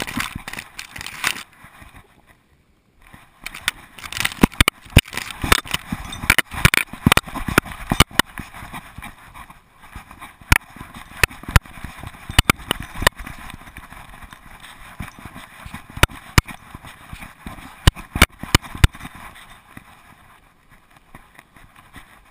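Irregular clicks, knocks and rubbing from a GoPro in its housing strapped to a moving dog, jostled with every step, with short pauses when the dog stops.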